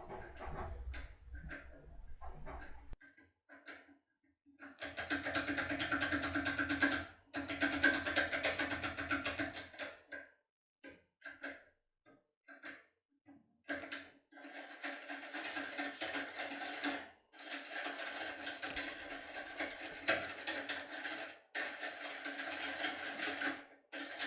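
Foil lock pick being rocked rapidly up and down inside a BASI CX6 cylinder under tension. It makes five bursts of fast metallic rattling, each a few seconds long, with light clicks between them.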